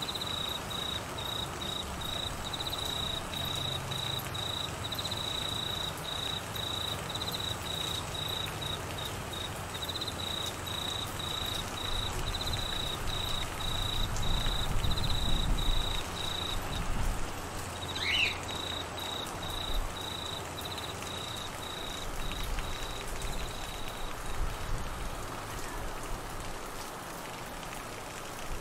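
Steady rain falling, with a cricket chirping at a high pitch about twice a second that stops near the end. About halfway through a low rumble swells and fades, and a brief high chirp sounds a little after it.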